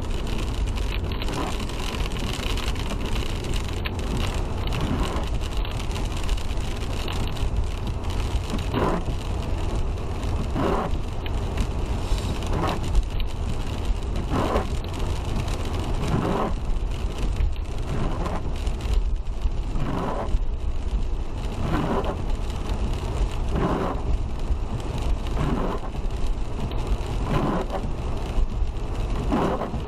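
Steady road and tyre rumble of a car driving on wet pavement in the rain, heard inside the cabin. From about a quarter of the way in, a regular swishing sweep comes roughly every two seconds, as from the windshield wipers.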